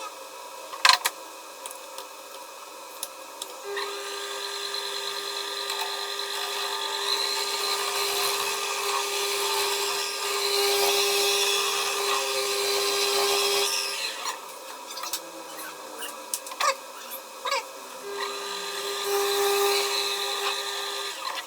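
A small electric power tool running at a steady pitch with a hissing cutting noise, for about ten seconds starting about four seconds in and again for about three seconds near the end. Sharp clicks and knocks of handling come before and between the runs.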